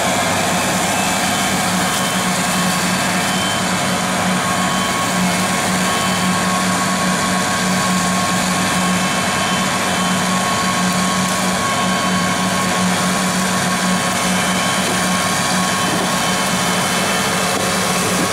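John Deere 9630T tracked tractor running steadily while pulling a mouldboard plough, a constant drone with a strong low hum.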